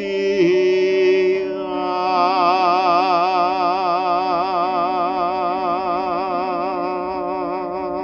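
A singer holding the long final note of a slow Korean art song with a wide vibrato over sustained accompaniment chords. It follows a short sung phrase and slowly grows quieter.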